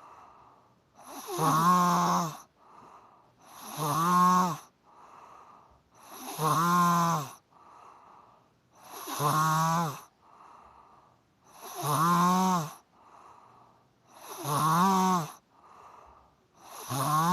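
A person snoring in a steady rhythm, about one snore every two and a half seconds: each a loud snore on the breath in, followed by a softer breath out.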